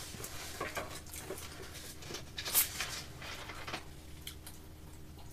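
A plastic bottle of cola twisted open, its cap releasing a short hiss of gas about two and a half seconds in, among small clicks and light tabletop handling sounds.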